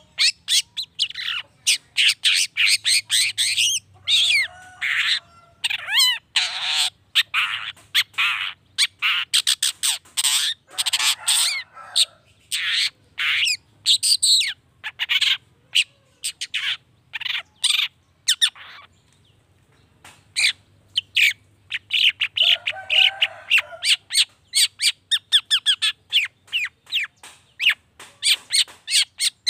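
Long-tailed shrike (cendet) singing a fast, harsh chattering song of short rapid notes, with a brief pause about two-thirds of the way through.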